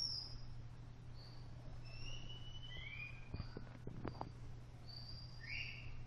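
Faint bird chirps, short calls sliding up and down, over a steady low hum, with a few soft clicks a little past the middle.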